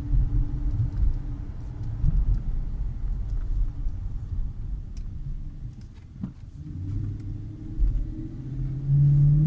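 2016 Dodge Challenger's 5.7-litre Hemi V8 heard while driving: a low rumble with steady droning tones. It eases off around the middle, then a lower tone grows louder near the end as the car picks up again. The owner calls this a weird whine that is not normal, cause unknown.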